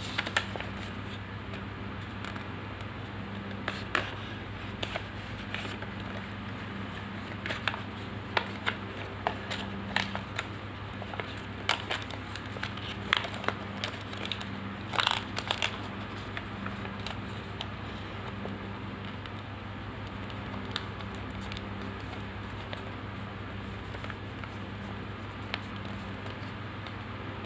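Sheet of origami paper being folded and creased by hand: scattered crinkles and crackles, busiest in the middle and thinning out toward the end, over a steady low hum.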